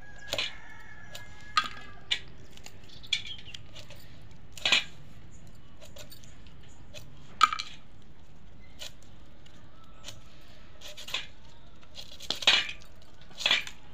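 Small dried fish being trimmed against an upright kitchen blade: about ten scattered short, crisp snips and clicks as heads and tails are cut off, with light metallic clinks.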